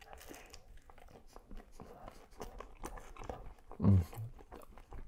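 Close-up mouth sounds of a man biting into and chewing a falafel waffle topped with lamb and cheese: soft wet clicks and crunches. About four seconds in comes one short, loud, low-pitched sound, followed by a fainter one.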